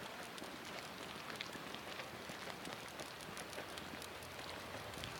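Sizzling Basin hot spring fizzing: a steady crackling sizzle of many tiny pops, like rain on a surface.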